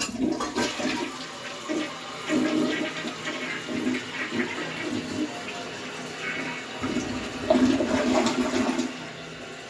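Toilet flushing: a sudden rush of water that runs on, surges again near the end, then drops to a quieter steady hiss.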